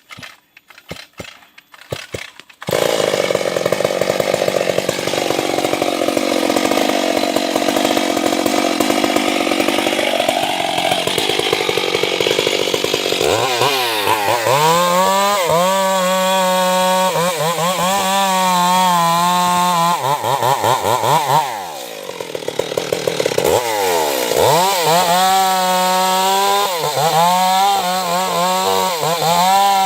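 Stihl chainsaw that cuts in loud after a few knocks about three seconds in and saws into wood, its engine pitch sagging under load. Later the engine revs up and down repeatedly and eases off briefly about two-thirds of the way through before revving again.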